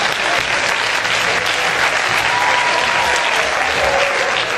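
Theatre audience applauding steadily: many hands clapping at once.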